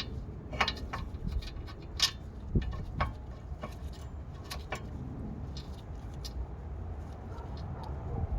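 Tools and metal brake parts clinking and knocking during a rear brake caliper fitting: a string of sharp, irregular clicks in the first half, over a steady low rumble.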